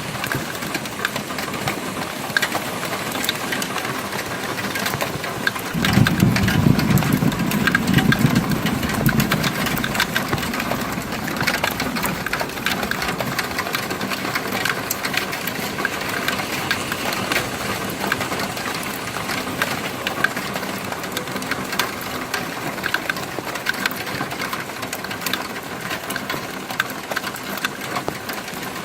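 O gauge model train running on its track: a steady, busy clatter of fine clicks from the wheels and motor. About six seconds in, a louder low rumble swells and fades over roughly four seconds.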